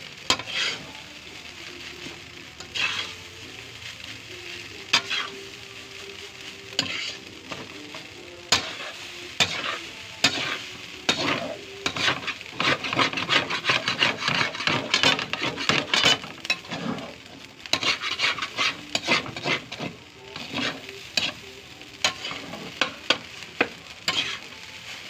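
A metal spatula scraping and knocking against a wok as fried rice is stir-fried, over a light sizzle. The strokes come in quick irregular runs, densest about halfway through.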